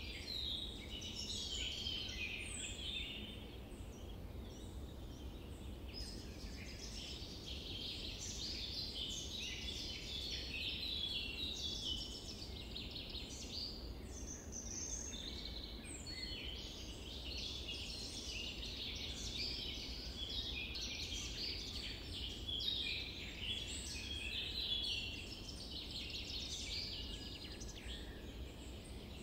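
Many small birds chirping and singing at once, a dense continuous chorus over a low steady background noise.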